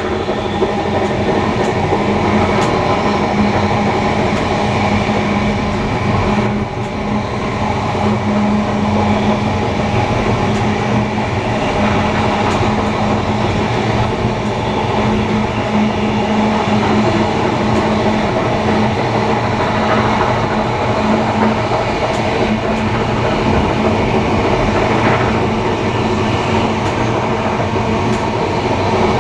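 Steam-hauled heritage passenger train running steadily along the rails: continuous wheel-on-rail rumble and rattle with a steady low hum.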